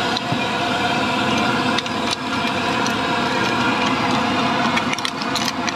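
Steady mechanical hum of a running engine or motor, with a few light metal clicks from serving tongs and scissors on the counter.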